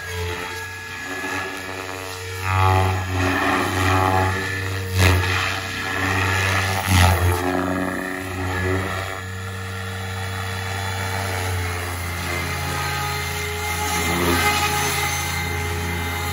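SAB Goblin Kraken electric RC helicopter with a three-blade main rotor in flight: a steady rotor drone with motor whine. It swells in several loud whooshes during aerobatic moves in the first half, then evens out as it hovers low over the grass.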